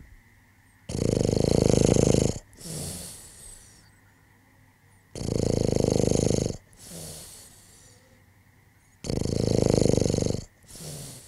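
Someone asleep and snoring: three loud snores about four seconds apart, each followed by a shorter, softer breath out.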